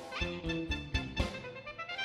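Romagna folk dance band playing: a clarinet leads a quick melody, opening with an upward run, over bass and a steady drum beat.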